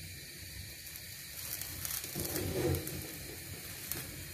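Whole eggplant charring over an open gas burner flame: a steady hiss with faint sizzling and thin crackles from its skin, the crackles coming from about a second and a half in. A brief louder low sound about two and a half seconds in.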